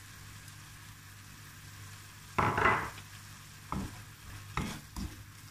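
Tomato and onion sauce sizzling gently in a frying pan. About halfway through a wooden spatula starts stirring it, with a loud scrape and then several short knocks against the pan.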